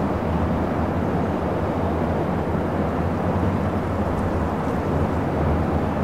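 Steady low rumble of busy city traffic, an even din without any brake squeal or distinct passing vehicle.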